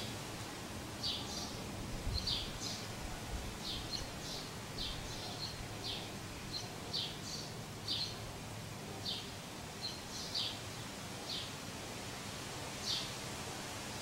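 Small birds chirping in short, high, repeated chirps at irregular intervals, over a faint steady low hum.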